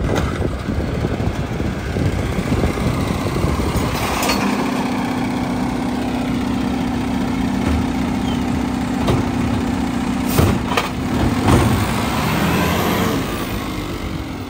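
Mack LR garbage truck running at the curb while its McNeilus automated side-loader arm works: the engine and hydraulics hold a steady low hum for about six seconds as the arm lifts and dumps a cart, with sharp knocks near the start and end of the lift.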